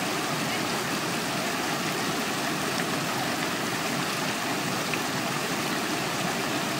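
Steady rush of a rocky stream flowing over and between stones.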